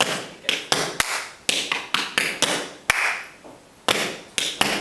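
Metal taps on tap shoes striking a hard floor in a repeated tap-dance step: sharp clicks about two to three a second, with a pause of about a second past the middle.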